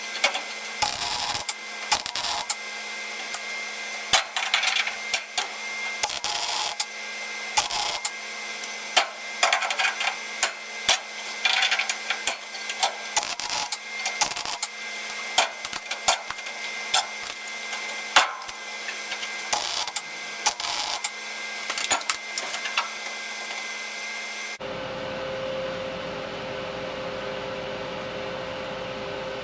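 Welder crackling in bursts of several seconds, laying plug welds through punched holes to fix a new inner rocker panel to the car body. Near the end it cuts abruptly to a steady low hum.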